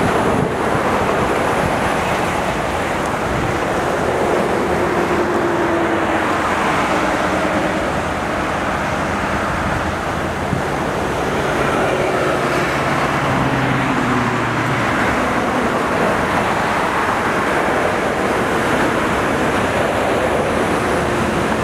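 Steady interstate traffic noise: cars and trucks passing at highway speed, with a heavier engine hum standing out around the middle.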